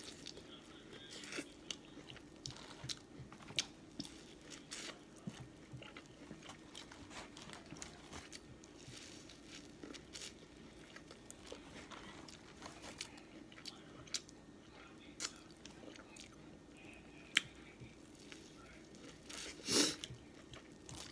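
Close-miked mukbang eating of a seafood boil, corn and crawfish: irregular chewing, biting and crunching with scattered wet mouth clicks. A faint steady hum runs underneath, and there is a louder short burst near the end.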